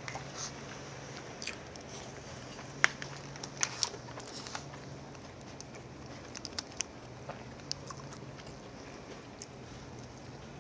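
Close-up eating sounds: chewing with scattered sharp clicks and taps, the loudest about three seconds in, over a steady low hum.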